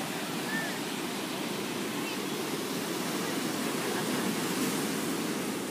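Ocean surf breaking and washing on the shore, a steady rushing noise.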